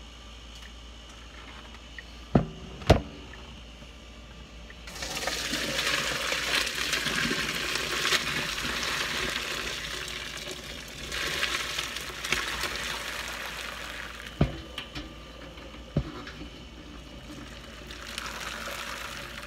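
Hot water poured off boiled grapes from a stainless steel pot into a sink, splashing in spells that begin about five seconds in. A few sharp knocks of the pot come before and between the pours.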